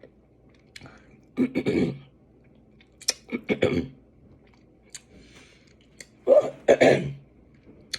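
Close-up eating sounds: chewing with small wet clicks, and three louder bursts of mouth and throat noise spaced a couple of seconds apart.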